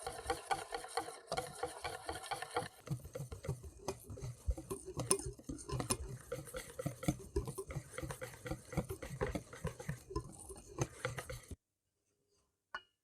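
Hand mixing in a bowl: a fast, even run of strokes for the first few seconds, then slower, irregular strokes with soft knocks. It stops abruptly a little over eleven seconds in, followed by a single click near the end.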